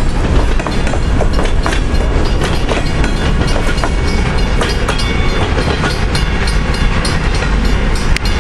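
Freight train boxcars rolling past, steel wheels clicking over the rail joints over a loud, steady rumble.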